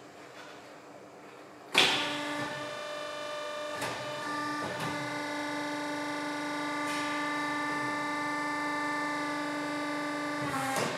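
Electric motor of a Corghi AGT Tilt Car Mate tyre changer starting with a clunk about two seconds in and running with a steady whine while the machine moves, dropping in pitch and level near the end.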